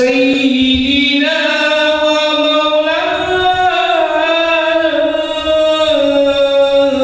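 Slow chanted singing, one melody line holding long notes that glide slowly up and down.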